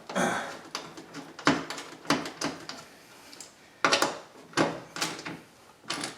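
Irregular sharp clicks and knocks of hard parts being handled and pressed into place inside a vehicle door, as the latch mount's push pin and wire bracket go in.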